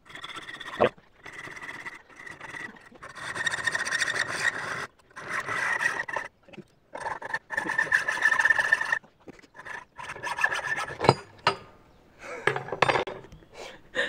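Small hacksaw cutting through an M8 bolt clamped in a bench vise: a run of rasping back-and-forth strokes with short pauses between them, and a sharp click about eleven seconds in.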